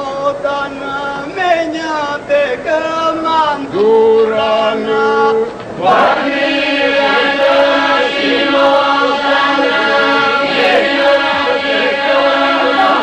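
Albanian men's polyphonic folk song sung by a large male group. A few voices sing a winding, ornamented line, then about six seconds in the whole group comes in, holding a steady low drone under the melody.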